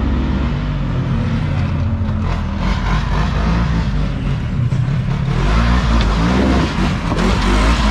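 Side-by-side UTV engine running hard in an off-road race, its pitch rising and falling as the throttle is worked; it gets louder about five seconds in.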